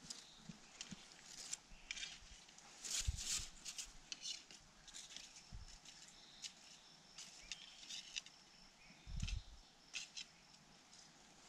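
Faint crackling and snapping of dry bamboo and leaf litter being moved and trodden, in scattered clicks with two dull thumps about three and nine seconds in, over a faint steady high-pitched drone.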